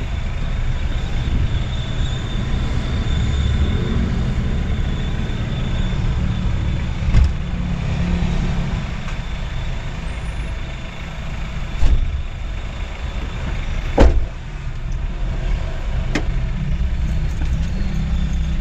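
Delivery van's engine and road noise heard from inside the cabin, a steady low rumble, with a few sharp knocks, the loudest about 14 seconds in.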